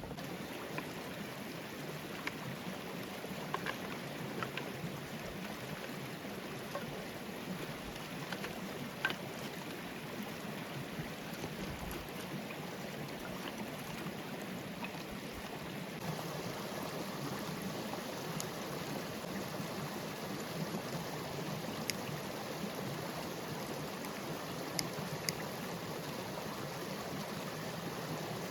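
Forest stream flowing in a steady rush, a little louder about halfway through, with scattered sharp clicks over it.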